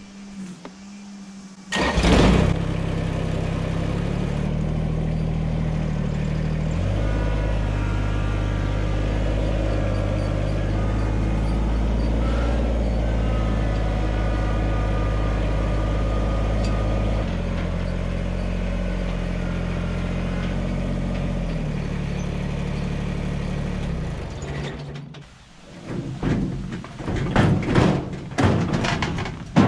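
A compact tractor's engine runs steadily as the tractor drives. It begins about two seconds in, and the engine speed steps up and down a few times. Near the end there are several knocks and thumps as a stainless steel drum chicken plucker is moved about.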